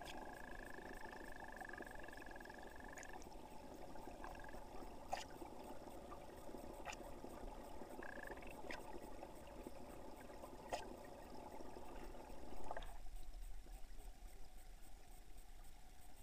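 Muffled rush of stream water heard underwater through a camera housing, with a faint steady whistle that stops about three seconds in and a few sharp clicks every second or two. The rush drops away suddenly near the end.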